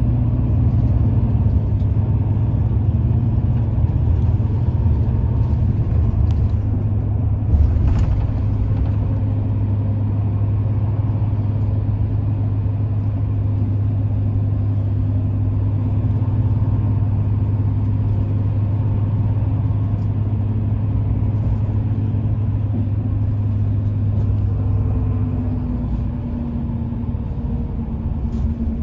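A low engine hum running steadily, with a few fixed tones above it, dropping away a few seconds before the end. A single click about eight seconds in.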